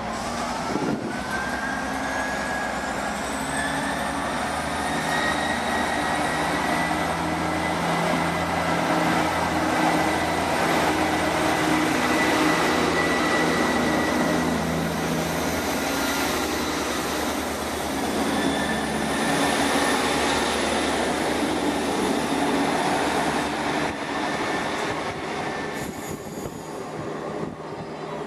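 Class 158 diesel multiple unit pulling away from a station: its underfloor diesel engines run up under power with a rising whine, then carry on steadily as the unit draws away. The sound changes about 26 seconds in.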